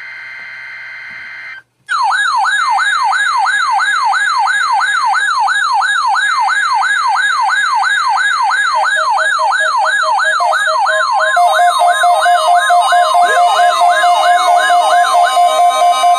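NOAA weather radio receivers alarming on the weekly test signal. A short burst of steady data tones from the broadcast's SAME header cuts off, then after a brief gap a loud electronic siren sweeps upward over and over, about two to three times a second. From about nine seconds in, rapid pulsed beeping alarms from other receivers join, and they carry on after the siren stops near the end.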